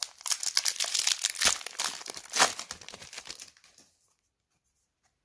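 Foil trading-card booster pack wrapper crinkling and crackling in the hands, dense and fast, stopping abruptly about four seconds in.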